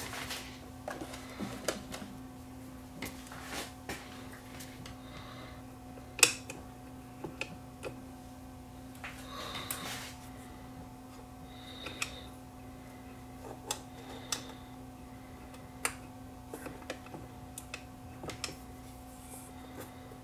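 Scattered light clicks and taps of small metal and plastic parts being handled in a Technics SL5200 turntable's mechanism, with one sharper click about six seconds in and a few brief high squeaks, over a steady low hum.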